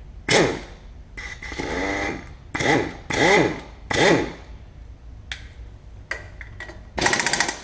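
Hand tools working bolts on a Chevy engine: several short bursts of metal scraping and squeaking. Near the end a ratchet clicks rapidly.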